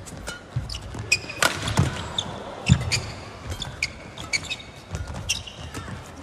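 Badminton rally on an indoor court: several sharp racket hits on the shuttlecock, short high squeaks of shoes on the court mat and low thuds of footwork, over the steady hiss of a large arena.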